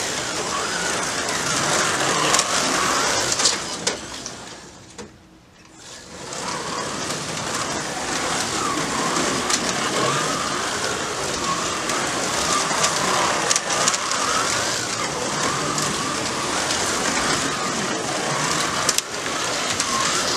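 1/32-scale slot cars lapping a Carrera track, their small electric motors whining and rising and falling in pitch as the throttles are worked, with scattered light clicks. The sound dips briefly about five seconds in.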